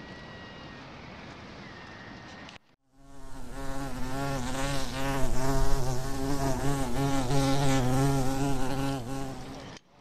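Wind and outdoor background, then a brief dropout about two and a half seconds in, followed by a loud buzz of a flying insect close to the microphone, its pitch wavering as it moves, which cuts off abruptly just before the end.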